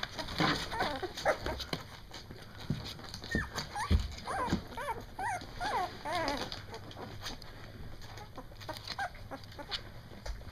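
Two-week-old Doberman puppies whimpering and squeaking, a run of short rising-and-falling calls that comes thickest from about three to six and a half seconds in. Scattered soft knocks sound throughout.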